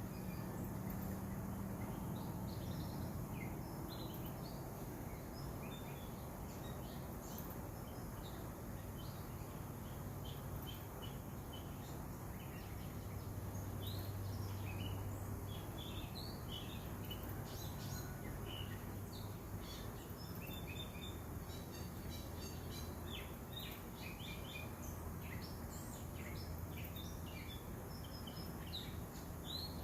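Many small birds chirping and twittering, the calls growing busier about halfway through, over a steady low hum.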